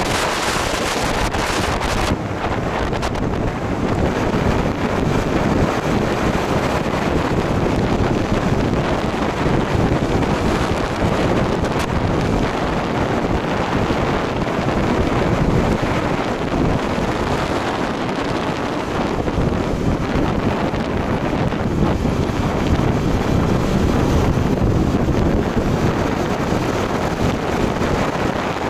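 Steady wind rushing over the microphone of a rider on a moving motorcycle, a constant rumbling noise that drowns out the engine.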